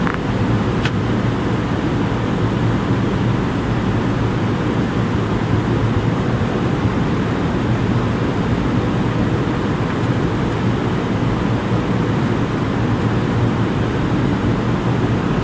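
Steady cabin noise of a McDonnell Douglas MD-82 climbing out after takeoff: the even rush of airflow and the drone of its rear-mounted Pratt & Whitney JT8D turbofans, heaviest in the low end with a low hum underneath.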